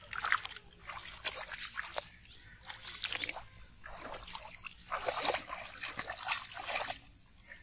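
Hands sloshing and splashing through shallow muddy water in irregular bursts while grabbing for fish by hand.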